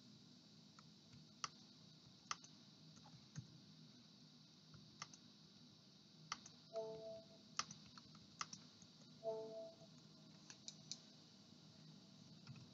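Faint, scattered clicks of a computer mouse and keyboard, about a dozen spread over the stretch, against a quiet room hum. Twice in the second half a short, faint hum-like tone is heard.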